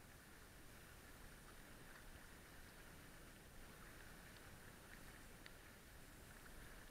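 Faint, even wash of water along a small sailing catamaran's hulls under way, with a few light ticks about halfway through.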